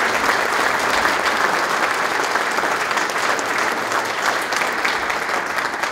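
Audience applauding in a large hall, a dense steady clapping that eases off near the end.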